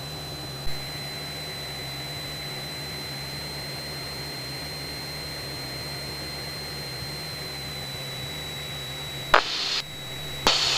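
Steady drone of a Cessna 172's engine and propeller in cruise, heard in the cabin, with a thin high whine running over it. Two short bursts of static-like noise near the end.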